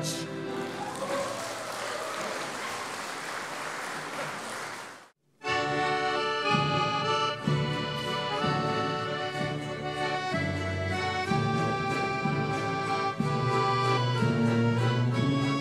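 Audience applause for about five seconds, cut off abruptly. Then two accordions and a tuba strike up an instrumental folk tune, the tuba giving a steady bass under the accordion chords.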